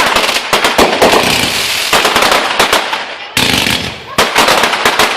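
Fireworks grand finale: a rapid barrage of overlapping bangs and crackling. The barrage thins a little near the middle, then surges again in a dense burst at about three and a half seconds.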